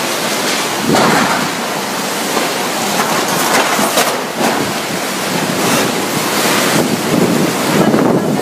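Typhoon-force wind blowing hard in repeated gusts with driving rain, the gusts buffeting the microphone.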